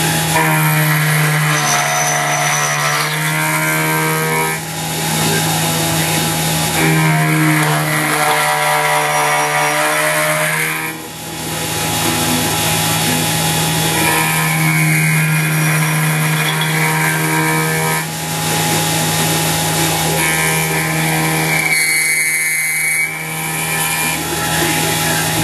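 CNC mini mill machining an aluminium housing: the spindle motor hums steadily while the feed drive whines in repeated passes of about four seconds, starting about every six to seven seconds.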